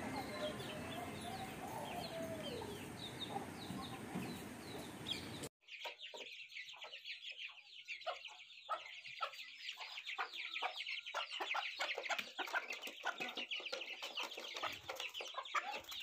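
Young aseel chicks peeping rapidly and continuously from about five seconds in, after a hard cut. Before that there is a steady outdoor background hiss with faint, small bird chirps.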